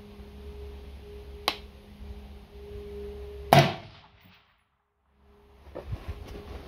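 A single rifle shot from an AR-15 with a Radical Firearms RF-15 upper and muzzle brake, firing a .223 handload, about three and a half seconds in, with a short ringing echo after it. A sharp click comes about two seconds before the shot.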